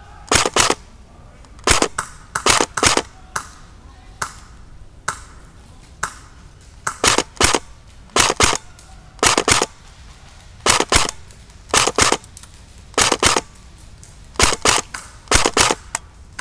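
Airsoft gun firing single shots in quick pairs and triples, a group about every second, with short pauses between.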